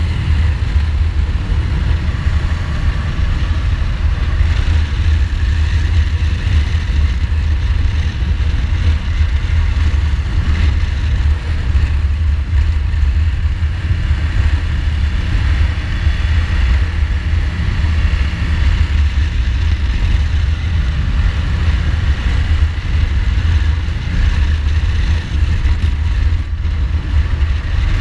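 A 2015 Ducati Multistrada's L-twin engine running steadily at road speed, with a heavy, constant rumble of wind on the microphone.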